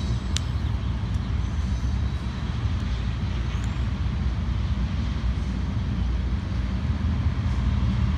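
Freight train of tank cars rolling past, a steady low rumble of wheels on rail.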